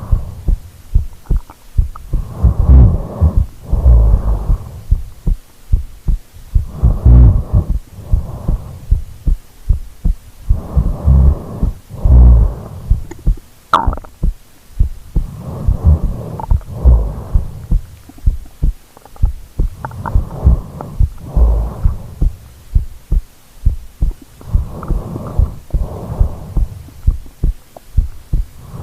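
Loud snoring: rattling snores that come mostly in pairs, about every four seconds, with one sharp click about halfway through.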